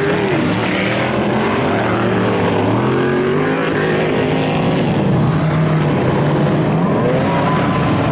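Engines of several Ultra4 off-road race buggies running hard as they race past in a pack. Their pitches rise and fall as the drivers work the throttle, over a constant rush of noise.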